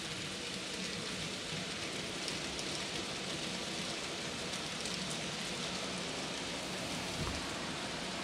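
N gauge model trains running along the track: a steady rushing hiss of small wheels on rail with a low motor hum underneath.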